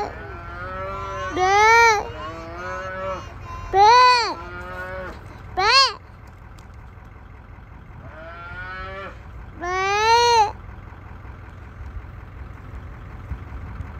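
A roped calf bawling repeatedly: about six short calls that rise and fall in pitch, the last about ten seconds in.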